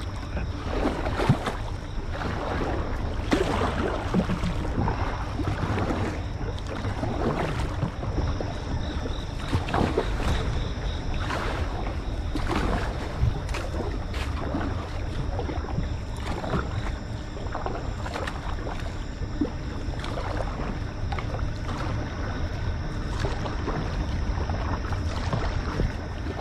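Canoe paddles dipping and splashing in a flowing river, with water rushing along the hull and a steady low rumble beneath. The strokes come at an irregular pace.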